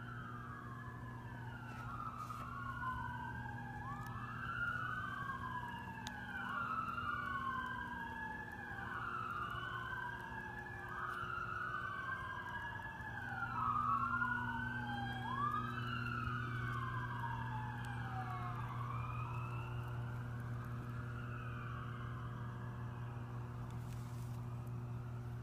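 Emergency vehicle siren wailing in repeated overlapping sweeps, each jumping up in pitch and falling off over about two seconds. It fades out near the end, over a steady low hum.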